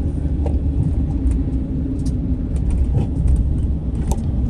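Car driving on a city street: steady low engine and road rumble, with a few faint light clicks.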